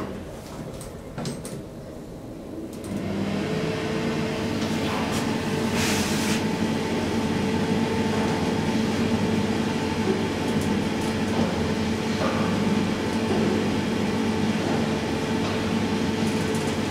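SMW traction elevator starting off and travelling, heard from inside the car: a steady machine hum with a few level tones sets in about three seconds in and holds. There is a short hiss about six seconds in.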